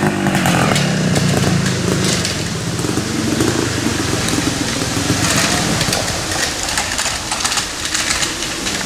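Vintage off-road motorcycle engines running under changing throttle on a dirt trail, the nearest bike fading a little as it rides off.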